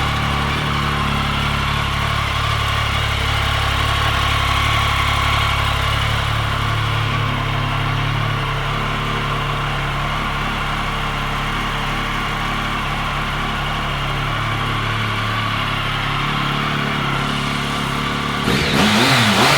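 2013 Triumph Speed Triple 1050's inline three-cylinder engine idling steadily, then given a quick rev that rises and falls back near the end.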